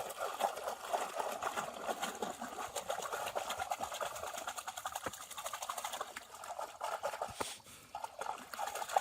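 Shallow water being stirred and splashed by hands feeling for fish, an irregular patter of small splashes and trickles that drops away briefly near the end.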